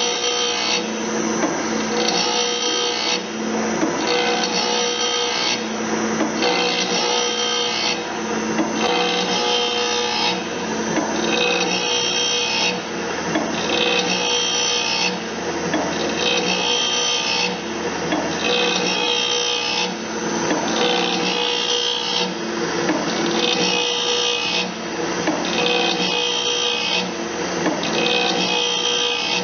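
Automatic bandsaw blade sharpening machine running: a steady motor hum under a regular grinding cycle as the grinding wheel works the blade teeth, about one stroke every second and a quarter.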